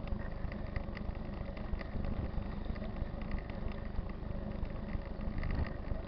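Mountain bike rolling over a rough dirt road: a steady low rumble with many small, irregular rattling clicks.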